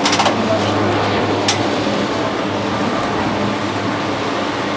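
Steady low machine hum, with a brief rattle at the start and a single sharp click about a second and a half in.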